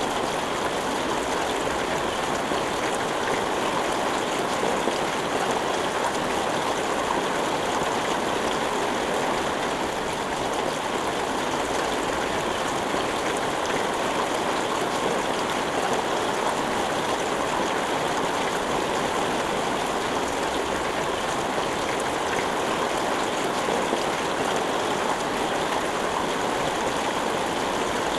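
Steady, even rain without thunder, a dense hiss of falling water.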